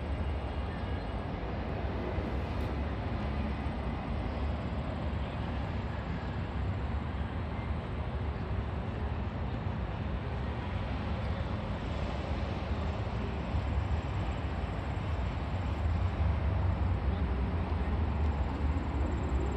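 Steady low rumble of city traffic, strongest in the bass and swelling slightly near the end.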